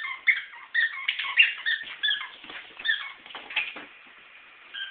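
A dog whining in a rapid string of short, high-pitched whimpers, some dropping in pitch, that stop about four seconds in.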